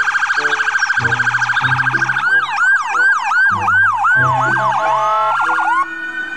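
Ambulance car electronic sirens: a fast trill at first, then sweeping falls about three a second from around two seconds in, and a slow rising wail near the end. Light background music runs underneath.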